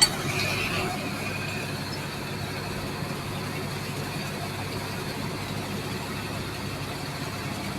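An engine running steadily with a low hum, under a constant haze of noise. There is a sharp click right at the start.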